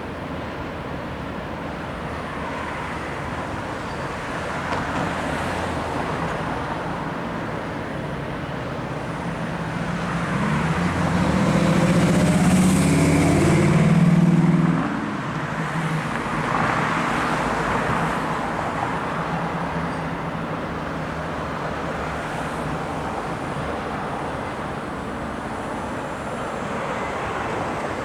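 Road traffic passing steadily. A heavy vehicle's engine is loudest about halfway through and drops off sharply.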